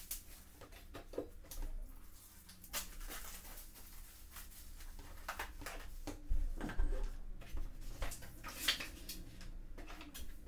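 Clear plastic shrink-wrap crinkling and crackling in irregular bursts as it is pulled off a hardback watercolour sketchbook, then the book's stiff cotton-paper pages rustling as they are handled near the end.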